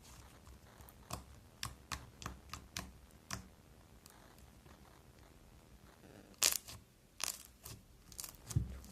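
Slime being squeezed and pulled by hand, giving scattered sticky clicks and pops, with two louder ones between six and seven seconds in.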